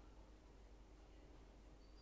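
Near silence: a faint steady low hum of background noise.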